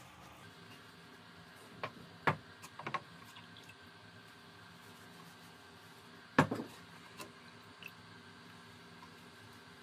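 A metal washer being dipped into a plastic bucket of dark liquid: a few short knocks and clinks against the bucket, a cluster about two to three seconds in and the loudest about six and a half seconds in. A faint steady hum runs underneath.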